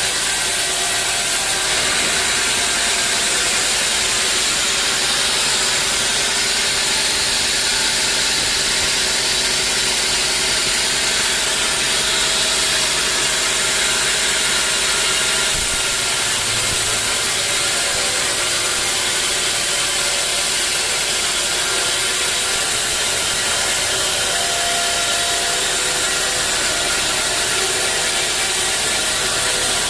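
Sawmill machinery running with a steady, loud noise, typical of a saw working through a teak log; a low hum underneath drops away about halfway through.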